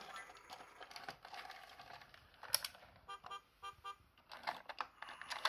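VTech Tut Tut toy dump truck and plastic playset: a tinny electronic tune, then a sharp plastic click and a quick run of short electronic beeps, with more plastic clicks near the end as the toy is pushed along the track.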